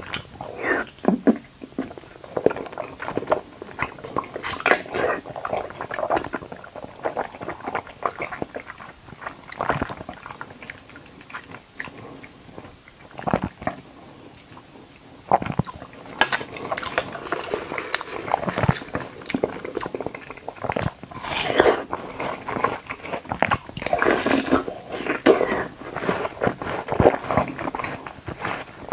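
Close-miked mouth sounds of a person eating watermelon and konjac jelly: bites and wet chewing in irregular bursts, easing off for a few seconds in the middle and picking up again after.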